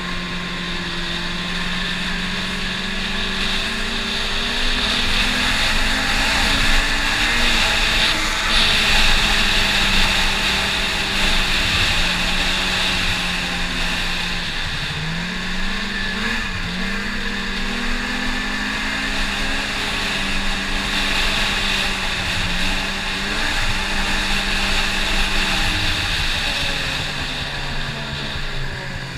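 Snowmobile engine running under throttle while riding, its pitch mostly steady, dipping and climbing again about halfway through and falling near the end, with a steady hiss over it.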